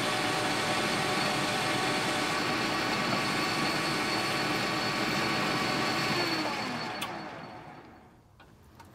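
Metal lathe running steadily with a brass workpiece spinning in the chuck, then switched off about six seconds in and spinning down, its hum fading and dropping slightly in pitch, with a click partway through the run-down.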